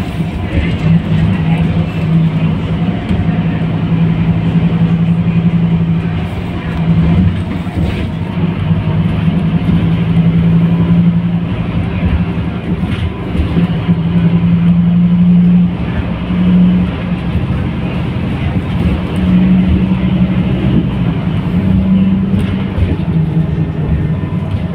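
Scania K310UB city bus's rear-mounted diesel engine and drivetrain running under way, heard from inside the passenger saloon: a loud low drone that drops away and comes back several times.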